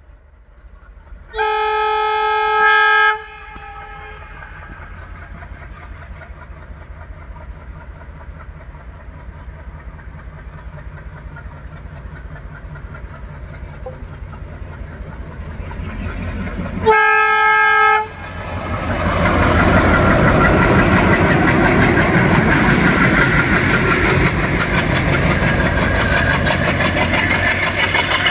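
Twin WDG3A diesel locomotives departing with a passenger train: two loud horn blasts, the first lasting about a second and a half near the start, the second shorter about 17 seconds in. Between them the diesel engines work hard and grow steadily louder as the locomotives approach, and from about 18 seconds in the locomotives and coaches pass close by, their engines and wheels on the rails loud and continuous.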